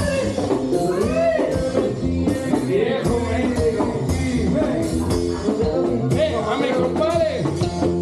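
Live Latin band music at a party: accordion and bass carrying a song with a voice singing over a steady beat.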